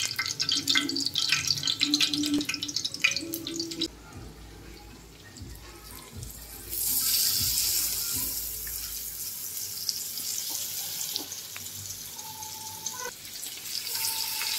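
Hot oil on a flat tawa crackling and spitting around green leaves, then from about seven seconds in a steady sizzle as rava-coated bombil (Bombay duck) fillets are laid in to shallow-fry.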